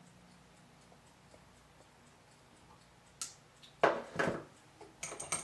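Pliers and twisted armature wire at a small clamp-on bench vise: faint regular ticking at first, then a sharp click and a short metallic clatter about four seconds in, and a few small clicks near the end, as the pliers are put aside and the wire is taken out of the vise.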